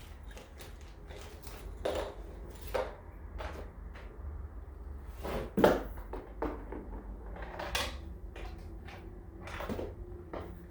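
Parts of a metal detector being handled and fitted together by hand as the adjustable shaft is joined to the search coil: scattered clicks and knocks, the loudest about five and a half seconds in, over a low steady hum.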